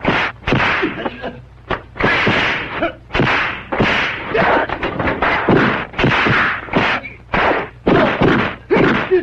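Martial-arts film fight sound effects: a quick run of punch and kick whacks and whooshes, one after another, over a low steady hum on the soundtrack.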